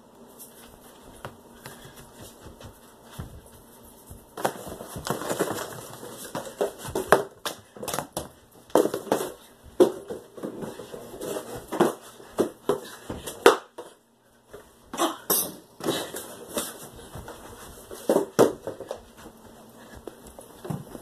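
Irregular knocks, thuds and clatters at an uneven pace, some sharp and loud, with softer handling noise between them.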